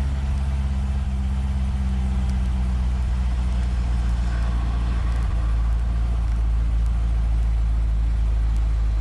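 Chevrolet C6 Corvette Z06's LS7 V8 idling steadily.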